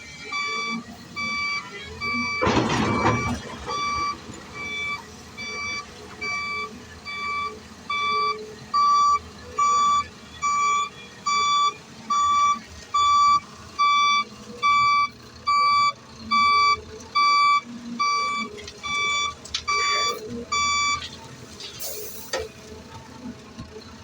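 Reversing alarm on heavy earthmoving machinery beeping steadily, a little over one beep a second, until it stops near the end, over a low engine background. A loud rushing burst comes about two and a half seconds in.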